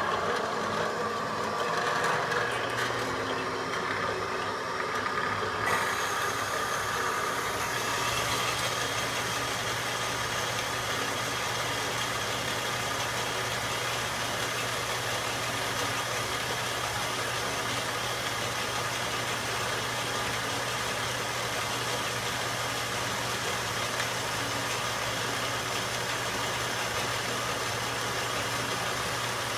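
Harbor Freight 4x6 metal-cutting bandsaw running and sawing through a metal bar: a steady motor hum under the blade's cutting noise, which turns brighter about six seconds in.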